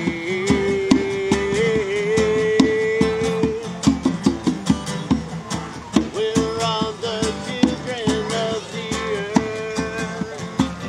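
Live band music: acoustic guitar strummed with a hand drum beating the rhythm, under long held melody notes that waver slightly in pitch.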